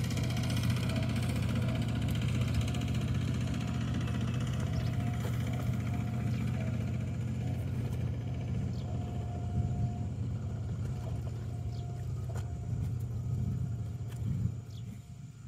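A steady low engine hum, like a motor idling, that drops away sharply near the end.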